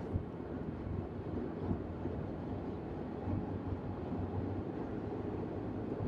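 Steady low road and engine noise of a moving car, heard from inside the cabin.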